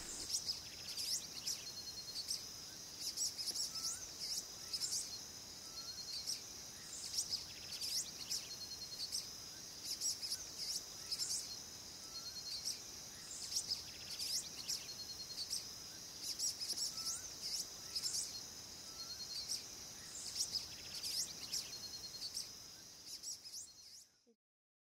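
Dusk forest ambience: a steady high-pitched insect drone with many short chirping calls repeating over it and a soft rising call now and then. It cuts off suddenly near the end.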